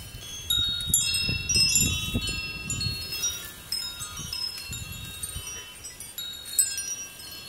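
Tubular wind chimes ringing in the wind, several tones struck together in irregular clusters and ringing on, with wind rumbling on the microphone underneath.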